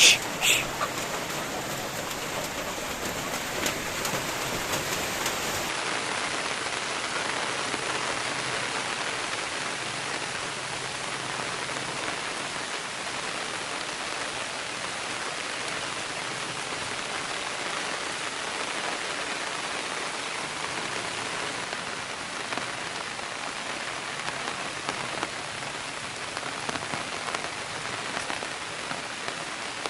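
Heavy rain falling steadily, an even wash of drops.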